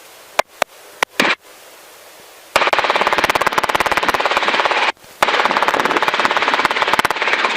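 Helicopter rotor and engine noise in the cabin, heard through the headset intercom as a rapid, even chopping. It is low at first with a few short blips, then cuts in abruptly and loud about a third of the way in, dropping out briefly about two-thirds through.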